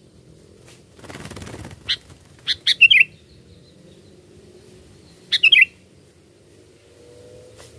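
Sooty-headed bulbul (kutilang) calling in short quick phrases of bright notes: one phrase around two to three seconds in and another just past five seconds. A brief burst of rustling noise comes about a second in, before the first calls.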